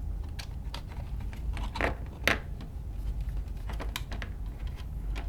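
Scattered light clicks and taps of hard parts being handled as a robot leg actuator is set in place for mounting, over a low steady hum.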